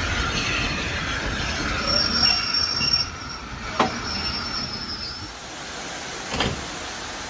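Passenger train rolling slowly along a station platform, its wheels squealing in thin high tones twice. A sharp click comes about halfway through, and a short burst of noise comes near the end.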